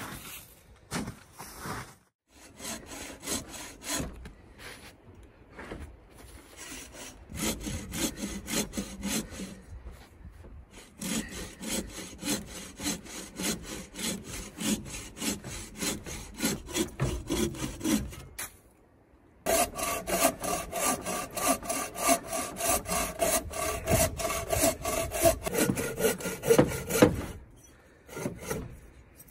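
Red bow saw cutting through a log, steady back-and-forth rasping strokes with two short breaks, one about two-thirds of the way in and one near the end.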